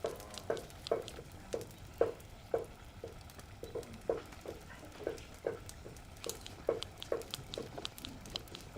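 A wooden utensil knocking against a cooking pot about twice a second, a little unevenly, as a sauce of cooked leaves is hand-blended and stirred.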